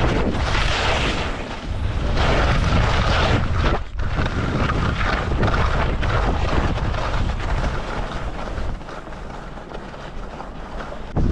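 Wind buffeting the camera's microphone during a fast downhill ski run, with the rushing hiss of sliding over snow. It drops briefly about four seconds in, eases near the end, then comes back loud at the very end.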